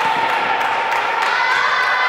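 A crowd of young spectators cheering and shouting without a break, many voices holding high-pitched yells.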